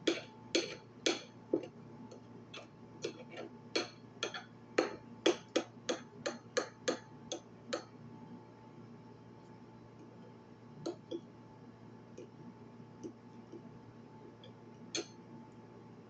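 A run of sharp clicks or taps, about two a second for some eight seconds, then a few scattered ones, over a faint steady hum.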